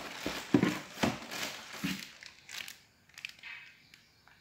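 Clear plastic packaging bag crinkling and rustling as it is handled, with a few light knocks among the rustle.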